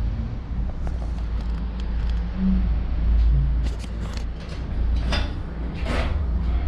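A steady low machinery hum, with a scatter of light clicks and two louder rustles about five and six seconds in.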